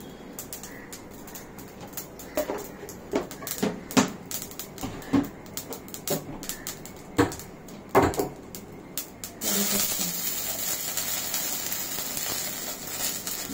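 Mustard seeds spluttering in hot oil for a tempering: irregular sharp pops and cracks, the loudest about four and eight seconds in. A bit over nine seconds in, a steady sizzle takes over as curry leaves hit the oil.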